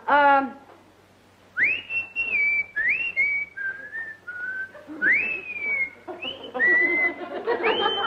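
A woman whistling a made-up bird call through pursed lips, starting about a second and a half in: a string of swooping notes, each rising sharply and then held and falling slightly. It is passed off as the call of a "South African yellow-bellied sapsucker".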